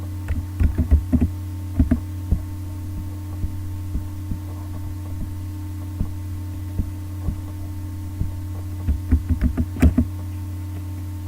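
Computer keyboard and mouse clicks in two quick clusters, near the start and again near the end, over a steady low electrical hum.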